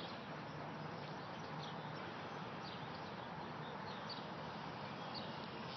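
Steady rush of floodwater flowing, with faint bird chirps here and there.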